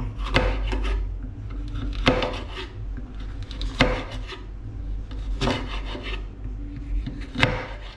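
Kitchen knife slicing a red sweet pepper on a wooden cutting board: short runs of cutting strokes, the blade scraping through and knocking on the board, coming about every two seconds, over a steady low hum.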